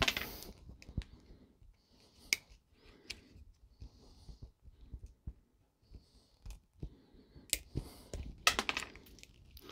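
Hand wire strippers clicking and snipping as the insulation is cut and pulled off the ends of 14-2 cable conductors: a string of sharp, irregular clicks with soft scraping between.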